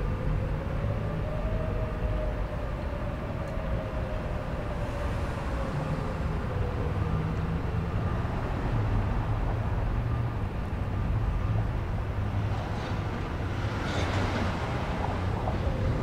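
Distant Whelen electronic sirens running in wail: a faint tone slowly rising and falling over a steady low rumble. A brief rush of noise comes about fourteen seconds in.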